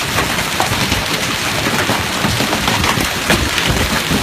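Hail and rain pelting down in a dense, steady patter, with many sharp individual hits of hailstones standing out.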